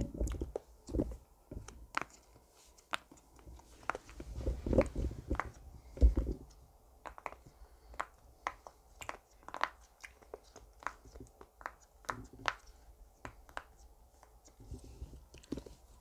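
Silicone pop-it fidget toy being pressed, its bubbles popping in a string of irregular small clicks, with a few dull bumps from handling.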